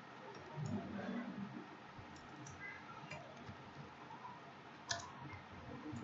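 Faint, sparse computer keyboard keystrokes from slow typing, with one sharper click about five seconds in.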